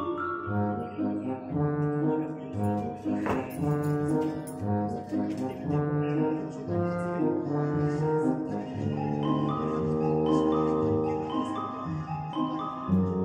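Background music: a tune of held notes that change pitch in steps.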